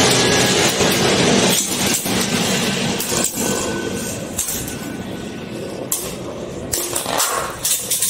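Metal Beyblade spinning tops whirring and grinding on a plastic chair seat, with sharp metallic clinks as they strike each other. The whirring fades as the tops slow and drop out.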